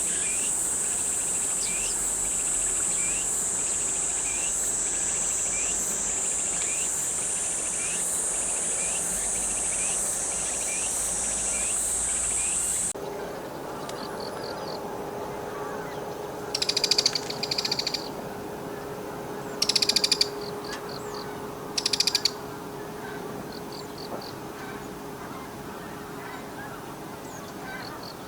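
A steady high-pitched insect drone with short, thin calls repeating about once a second. About halfway through the scene changes: a bull-headed shrike gives harsh, rasping calls in four short bursts over a faint low hum.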